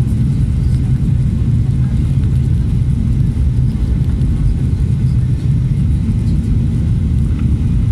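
Steady low rumble of a jetliner's engines and rushing air, heard inside the passenger cabin during the climb just after takeoff.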